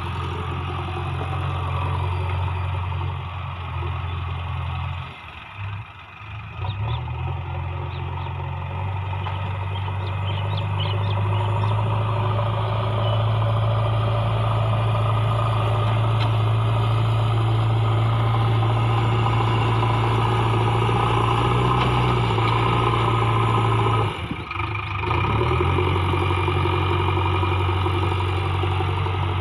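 Diesel engine of working machinery running steadily, with a deep, even hum. The sound drops away briefly twice, about five seconds in and again about five seconds before the end.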